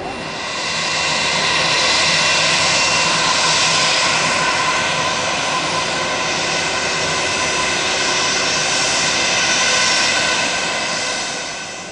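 Jet aircraft's engines passing close by: a loud rushing noise with several steady whining tones. It swells about a second in, holds, and fades near the end.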